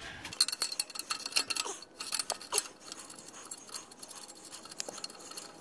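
Hand ratchet clicking in quick, irregular runs as it backs off a nut on an exhaust flange bolt, with light metal clinks of the tool on the fitting. The clicking is dense for the first couple of seconds, then thins to scattered ticks.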